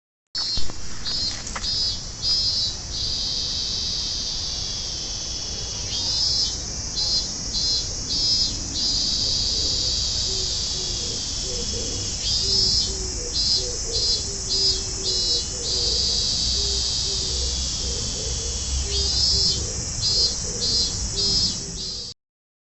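Minmin cicada (robust cicada, Hyalessa maculaticollis) singing: a steady high buzz that breaks about every six seconds into a run of four or five pulsed "min-min" notes. An Oriental turtle dove coos softly in the background from about nine seconds in.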